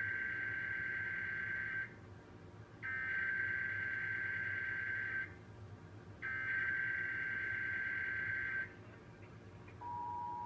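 Emergency Alert System SAME header: three identical bursts of high-pitched digital data warble, each about two and a half seconds long with a short pause between. They open a Required Monthly Test. Near the end the EAS two-tone attention signal begins, a steady two-pitch tone.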